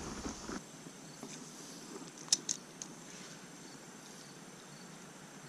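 Faint creekside ambience with insects chirring steadily in a thin high tone. A low rumble cuts off about half a second in, and two sharp clicks come a little over two seconds in.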